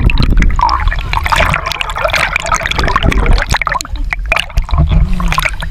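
Seawater sloshing, gurgling and splashing right on a waterproof action camera's housing as it goes under the surface and comes back up, with many small pops and a low rumble from the water moving over the microphone.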